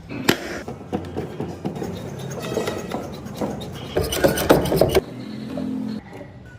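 Music playing, with a brief burst of noise about four seconds in.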